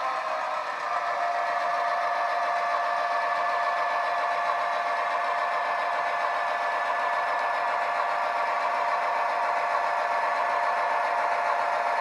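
Model Irish 141 class diesel's DCC sound decoder (Wheeltappers sound file on a LokSound 5) playing a steady diesel engine run through a small double speaker, thin with little bass. A steady whine joins about a second in.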